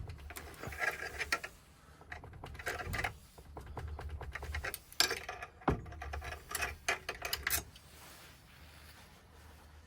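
Irregular sharp metal clicks and taps, some in quick clusters, as a key and the clamp of a key-cutting machine are handled and repositioned to shift the cut spacings towards the tip of the key.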